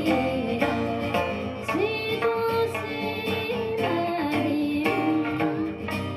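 A woman singing an Okinawan folk song, accompanying herself on the sanshin: plucked sanshin notes under her held, sliding vocal line.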